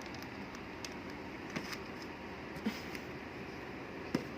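Steady background hiss with a few short, light clicks.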